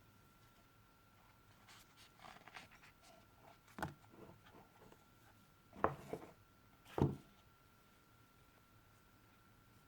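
Hands handling a watch box and its packaging: soft rustling and scraping, then a few sharp knocks. One knock comes about four seconds in, and two louder ones come about a second apart near six and seven seconds.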